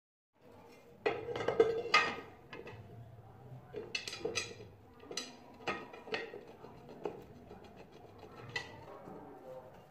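Steel parts clinking and knocking against each other as a steel mounting plate and bolts are fitted by hand to a bench grinder's body. The sharpest knocks come about one and two seconds in, then single clinks every second or so.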